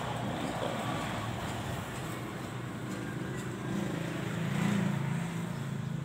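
A motor vehicle engine running over steady traffic-like background noise, with a low hum that swells louder about four to five seconds in.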